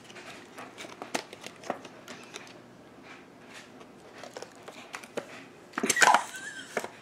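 Small clicks and crinkling rustles of cosmetic packaging being handled and opened, then a louder, longer burst of rustling about six seconds in.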